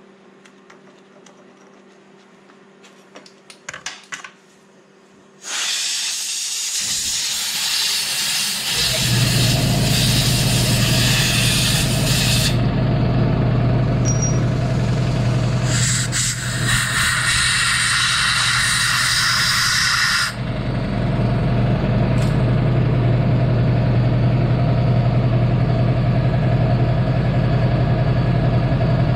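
Compressed air blowing from an air hose in two long hissing blasts, the first starting about five seconds in and the second a few seconds after it ends. This clears tapping chips from the freshly tapped hole in the crankshaft end. During the first blast an air compressor starts up and keeps running with a steady hum. A few small clicks of hand tools come before the air.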